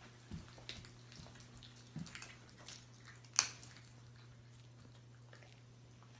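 Faint scattered clicks and small ticks from a serval and a kitten at food on a hardwood floor, with one sharp click about three and a half seconds in, over a steady low hum.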